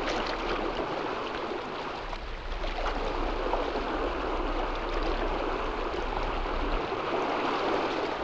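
Water rushing and splashing along a sailing yacht's hull: a steady rush that eases briefly about two seconds in, then swells again.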